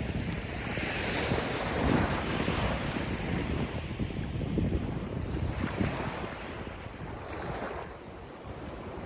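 Ocean surf: waves breaking and washing in, swelling about two seconds in and again near six seconds, over a low gusty rumble of wind.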